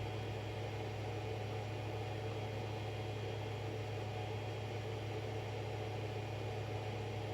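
Steady low hum with an even light hiss: room tone.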